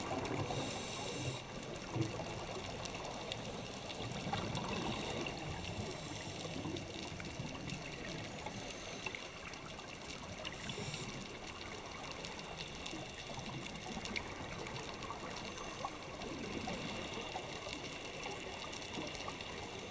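Underwater water noise picked up by a camera's microphone inside its housing: a steady, muffled wash of water sound.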